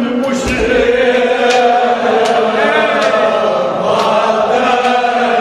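Men's voices chanting a Kashmiri marsiya, a Shia mourning lament, in long held notes. A few sharp slaps cut through the chant at irregular intervals.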